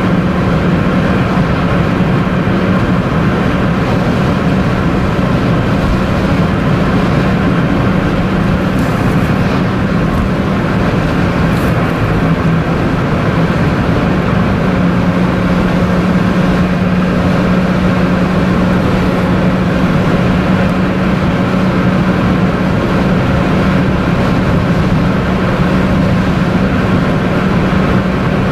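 Steady road noise heard inside a car cabin at highway speed: tyres running on the pavement with a constant low engine hum underneath.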